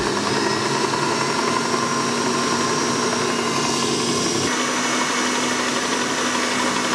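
Kenwood Chef XL Titanium stand mixer running at a high speed, its motor giving a steady hum and whine as the whisk whips cream in the steel bowl. The sound shifts slightly about halfway through.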